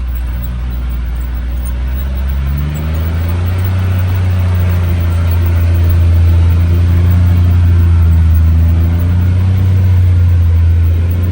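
UTV engine running as it is driven, its pitch stepping up and getting louder about two and a half seconds in, then holding steady.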